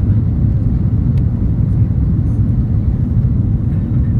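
Steady low rumble inside the cabin of an Airbus A340-300 on approach: its four CFM56-5C4 engines and the airflow over the wing with the flaps extended.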